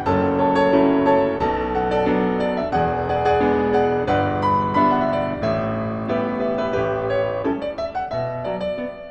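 Background piano music, with notes struck several times a second.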